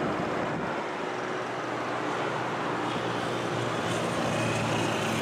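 Jet engines of an Airbus A321-200 freighter on short final and flaring to land: a steady rushing jet noise with a low drone, growing a little louder in the last couple of seconds.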